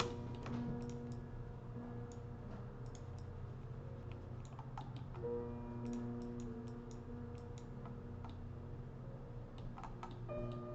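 Calm background music of held, slowly changing chords, with scattered clicks of a computer mouse and keyboard.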